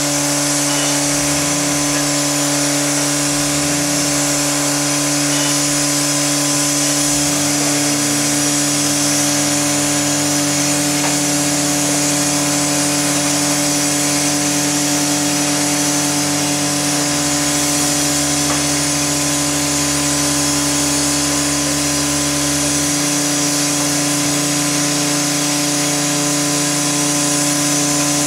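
Steady, loud hiss of steam from a standing LMS Class 5MT 'Black 5' steam locomotive, over a constant low mechanical drone that steps in level twice in the second half.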